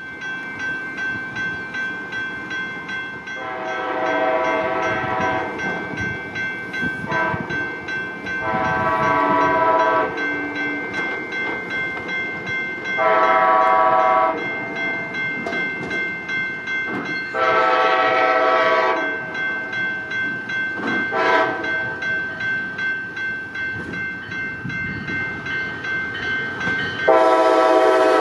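Air horn of an Amtrak Cascades Siemens SC-44 Charger locomotive sounding a crossing sequence of long blasts with short ones between, growing louder near the end as the train comes close. Under it a grade-crossing warning bell rings steadily.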